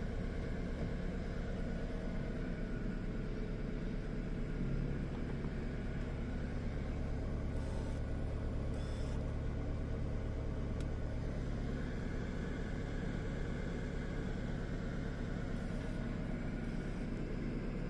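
Peugeot 407's 2.2-litre 16-valve EW12J4 four-cylinder petrol engine, fuelled with E85, idling steadily at about 1,000 rpm while warming up after a cold start, heard from inside the cabin as a low, even hum.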